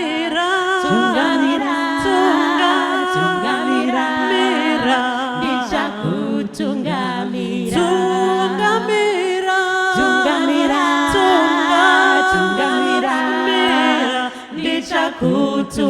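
Three women singing a Shona song unaccompanied, in close harmony, holding long notes with short breaths between phrases.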